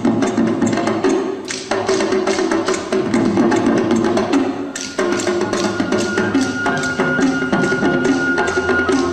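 Dance music driven by fast percussion: a dense run of rapid, clicking drum strokes over sustained instrumental notes, with a single high note held from about six seconds in.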